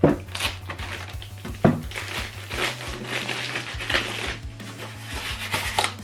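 Background music, with packaging being handled over it: crinkling and a few sharp knocks, the loudest at the very start and another just under two seconds in.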